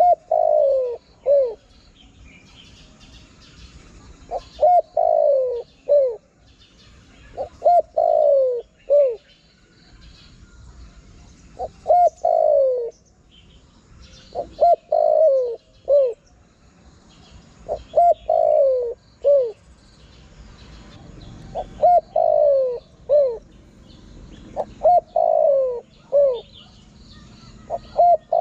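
Spotted dove cooing its territorial call, the phrase repeated about every three and a half seconds: two quick coos, a longer falling coo and a short last coo. Faint high chirps of small birds sound in the background.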